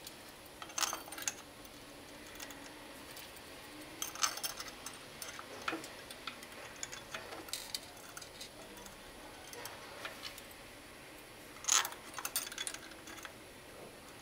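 Steel tie rods being slid through an electric motor's cast frame and their nuts fitted: scattered light metallic clicks and clinks in several short clusters, the loudest near the end.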